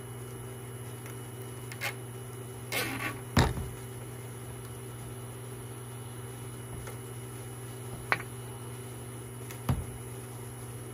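Plastic fan-mounting pins being pushed into and through a radiator core, giving a few scattered clicks and knocks, the loudest about three and a half seconds in, over a steady low hum.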